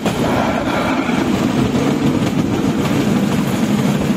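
Railway motor trolley running along the track: a steady engine drone mixed with the rumble of its wheels on the rails.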